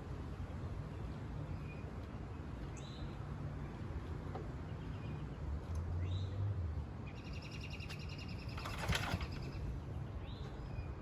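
Birds calling: a short rising chirp repeated every few seconds, and a buzzy trill about seven seconds in. A little after that comes a brief burst of noise, the loudest sound here, over a steady low background rumble.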